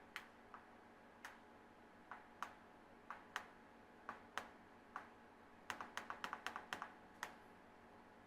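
Light clicks of a handheld remote control's buttons being pressed: single presses every half second or so, then a quick run of about eight presses around six seconds in.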